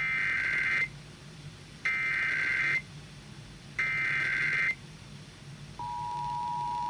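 Emergency Alert System SAME header for a Required Monthly Test: three short digital data bursts, each under a second and about two seconds apart. Near the end the steady two-tone EAS attention signal begins.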